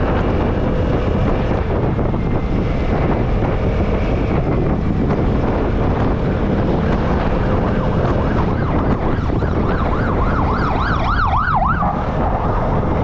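Wind rushing over the action camera's microphone and the steady running of a Vespa S125 scooter's single-cylinder engine at riding speed. Past the middle, a siren wails up and down quickly for a few seconds.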